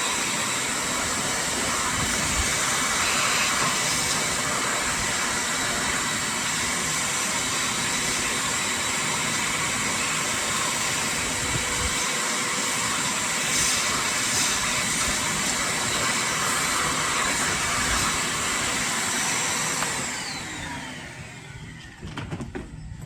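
Electric power tool motor running steadily at full speed, then switched off about twenty seconds in and spinning down with a falling whine.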